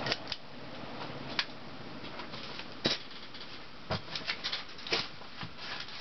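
Pull-chain switch of a 1981 Casablanca Four Seasons ceiling fan clicking as it is pulled, then irregular light clicks and ticks over a faint steady whir as the fan speeds up.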